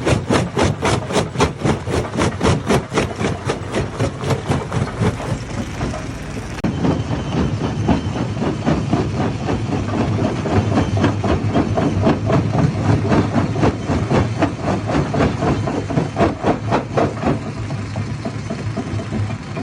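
Hammer stone crusher running, with a fast, even clatter of about five knocks a second over a steady low hum. About seven seconds in, the sound changes abruptly and the knocks turn softer.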